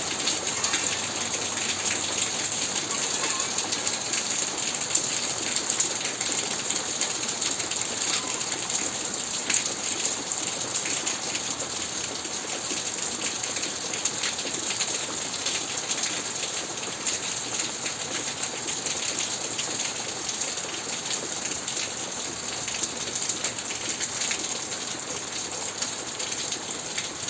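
Steady rainfall, a dense hiss of many raindrops pattering on surfaces.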